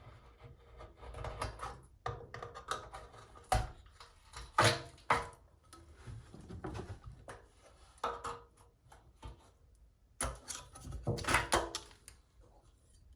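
Knife cutting and scraping through silicone sealant behind the drain bracket of a pottery wheel, uneven scraping with several sharp knocks and clicks as the bracket is worked loose.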